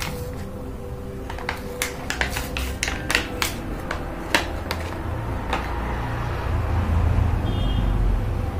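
Packaging for a Scum Frog fishing lure being opened by hand: the card-and-plastic pack and the tissue-paper wrapping crackle and rustle in a quick run of sharp clicks, easing off about halfway through. A low rumble of handling noise follows.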